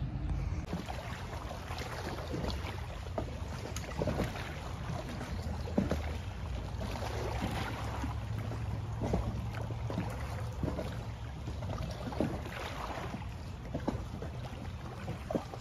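Small waves lapping and splashing irregularly against a rocky shoreline, over a steady low rumble.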